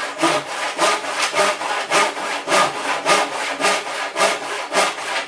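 Hand saw cutting through a length of timber, with steady back-and-forth strokes at about two a second.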